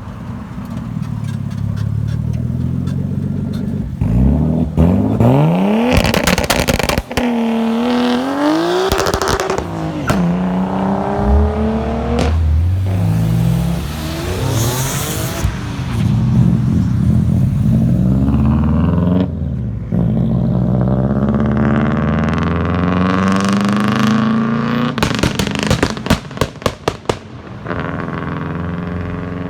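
Modified performance car engines revving and accelerating hard, the engine note climbing and dropping through gear changes. Near the end comes a quick run of sharp cracks.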